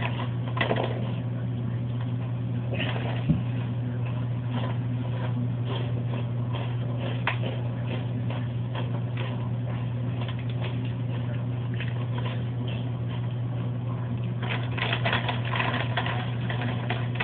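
Cheetos being chewed and handled: scattered small crackles and clicks at an uneven pace over a steady low hum.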